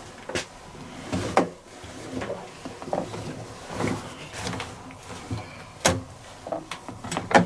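A few scattered light knocks and clicks with soft handling rustle, from the open drum flaps and lid of a top-loading washing machine being handled.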